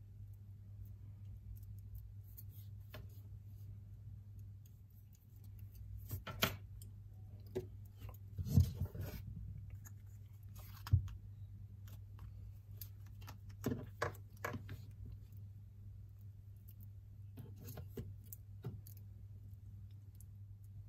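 Scattered clicks, taps and short rustles from handling a crumpled metal tube of Goop adhesive and small plastic model parts, with the loudest knocks about a third and halfway through, over a steady low hum.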